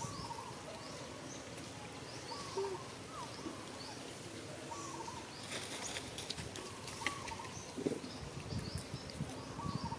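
Birds calling: short high chirps repeated throughout, with a lower call about every two seconds. A few faint clicks and rustles come between about five and seven seconds in.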